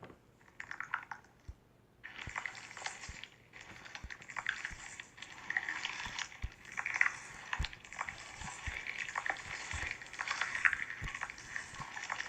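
Slime being squished by hand, with wet clicks and pops, nearly continuous from about two seconds in.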